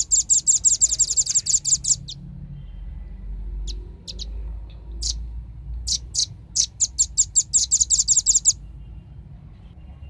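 Velvet-fronted nuthatch (rambatan) calling in rapid trills of sharp, high chip notes, about nine a second. One trill runs for about two seconds at the start; a few single notes follow, then a second trill comes near the end, over a low background rumble.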